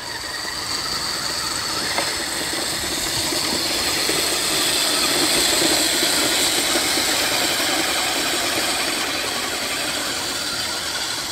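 Electric motors of two RC mud trucks, one brushless and one with dual brushed motors, whining steadily under load as their tyres churn through wet mud.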